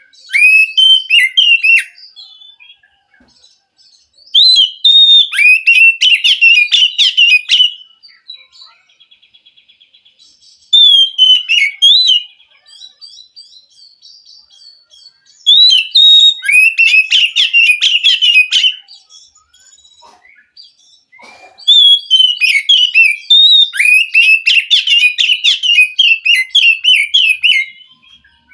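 Oriental magpie-robin singing: about five bursts of rapid, varied whistles and chattering notes, each lasting a few seconds, with quiet pauses between them.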